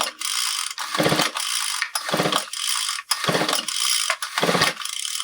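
Craftsman string trimmer's recoil starter being pulled over and over, about once a second, to crank the engine against a compression gauge with the spark plug out. Each pull brings a rattling whir from the starter and a low surge as the piston comes up on compression. The engine does not fire.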